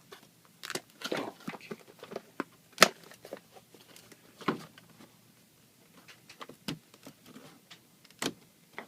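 Packaging and small plastic parts being handled: irregular crinkling, rustling and sharp clicks, the loudest click about three seconds in and further clicks near the middle and near the end.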